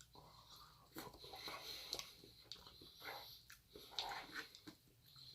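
A person quietly chewing food, with soft mouth clicks and smacks at irregular moments.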